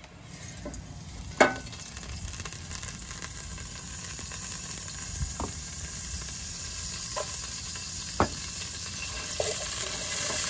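Fish sizzling in a hot pan as it is braised with eggplant: a steady frying hiss that grows louder near the end. Two sharp clicks stand out, with a few softer taps.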